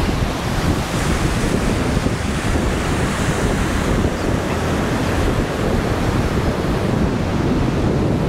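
Wind blowing across the microphone with a low rumble, over the steady rush of rough ocean surf breaking.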